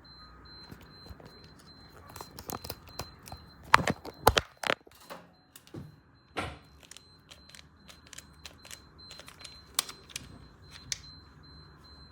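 Irregular clicks and knocks of small objects being handled, the loudest a cluster about four seconds in, over a faint high-pitched tone.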